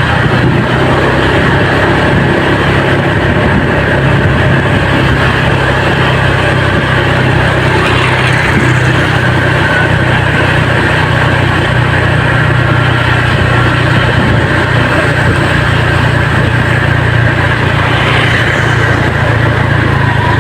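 Vehicle engine running steadily at low revs, a loud, even low drone.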